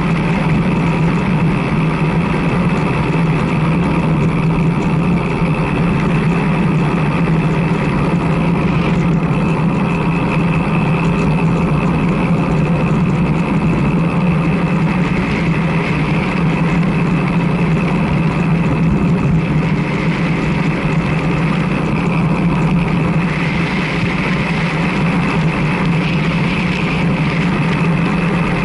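Steady rush of wind over the camera microphone, with road noise, on a road bike riding along asphalt.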